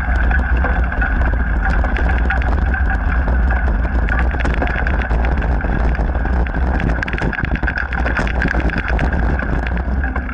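Mountain bike riding over a gravel and dirt trail: a steady low rumble of wind and vibration on the action camera's microphone, with rapid irregular clicks and rattles from the tyres on small stones and the bike's parts.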